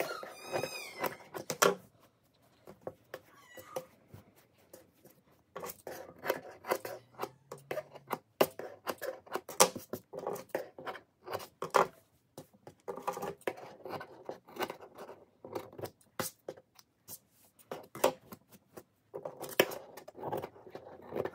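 Scissors snipping through layered tulle in runs of quick cuts, with the fabric rustling as it is smoothed flat; the cutting pauses for a few seconds near the start. A cat meows briefly at the very beginning.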